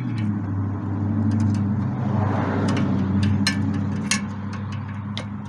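A power tool runs steadily, spinning out a cross-threaded fastener whose threads are stripped and grinding. A few sharp clicks sound over it, and it grows louder in the middle.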